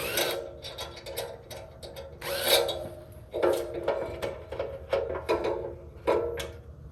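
Cordless impact driver driving 3-inch screws into a cedar log in several short bursts, each a rattling, hammering run of the motor.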